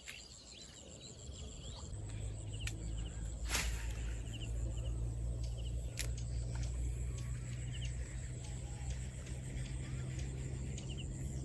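A steady low engine hum comes in about two seconds in and holds, with faint high chirps and a few sharp clicks over it.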